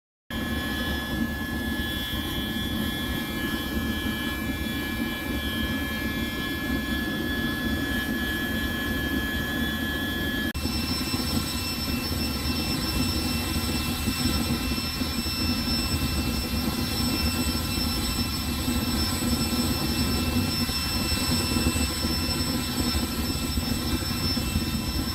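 Homemade waste-oil vaporising burner firing into a propane-bottle blast furnace with forced air: a steady roar with high whining tones on top. About ten seconds in the whine abruptly changes pitch.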